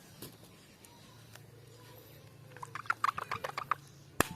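Light clicks and rattles from handling toys: quiet at first, then a quick run of small clicks about two and a half seconds in, and one sharp click near the end.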